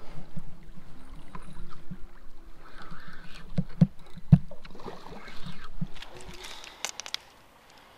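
Water sloshing and splashing with irregular hard knocks, loudest in a cluster around the middle, then a few sharp clicks before it quiets near the end.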